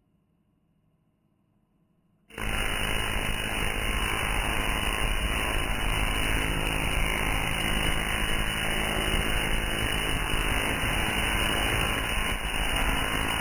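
Tesla coil firing, its spark arcing from the toroid top load to a grounded ball terminal: a loud, harsh crackling buzz that starts suddenly about two seconds in and holds steady, dying away near the end.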